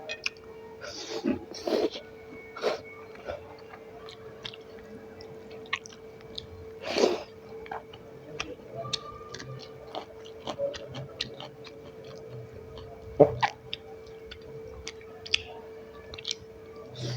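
Close-miked chewing and mouth sounds of a person eating: a stream of short wet clicks with a few louder smacks, over a faint steady hum.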